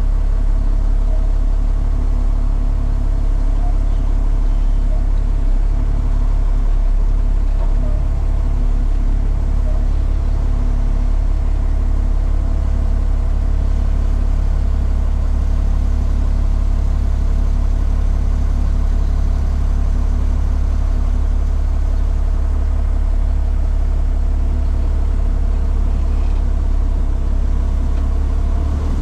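Front-load garbage truck's diesel engine running steadily at low speed, heard from inside the cab as a deep, even drone.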